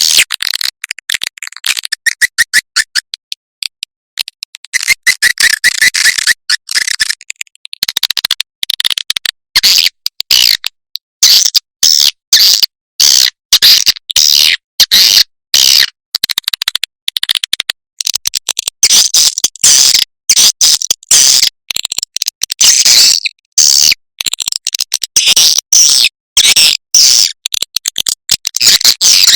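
Recorded swiftlet calls: a dense, rapid, high-pitched twittering broken by many brief abrupt gaps. It is a lure recording played to call swiftlets into a nesting house and get them to roost.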